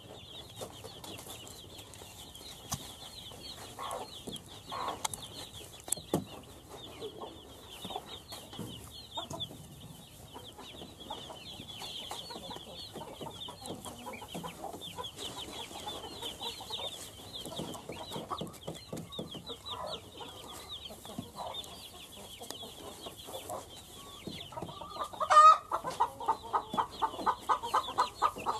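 Domestic chicks peeping continuously with high, quick cheeps, while a hen clucks now and then. About 25 seconds in the hen gives a loud call and then clucks rapidly and evenly, about four clucks a second.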